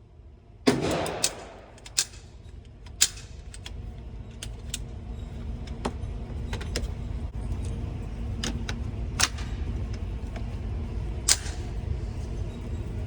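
Gunshots at a shooting range: one loud crack about a second in, then a string of sharp cracks at irregular intervals, over a low rumble that grows louder partway through.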